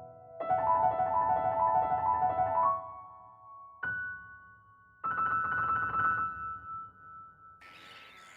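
Background piano music played in short phrases of sustained notes. A faint hiss comes in near the end.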